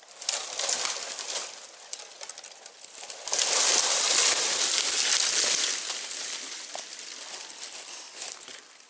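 Small dead tree being pushed over: scattered crackles of wood and dry branches. About three seconds in comes a loud rush of crackling and swishing as the falling tree and its dead branches crash through neighbouring branches, fading over a couple of seconds.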